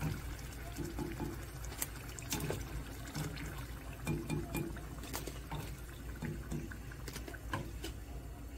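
Battered eggplant strips deep-frying in hot oil: steady sizzling and bubbling with many scattered crackles and pops.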